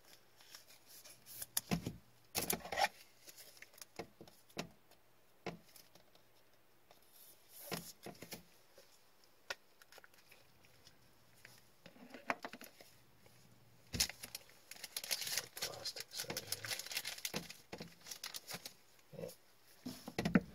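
A trading card and its clear plastic sleeve handled with nitrile-gloved hands: scattered light taps and clicks, then a few seconds of rustling about fifteen seconds in.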